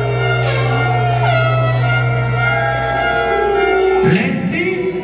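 Dancehall/reggae record played loud through a sound-clash sound system: a melody over a held deep bass note, broken by a sharp downward pitch swoop about four seconds in.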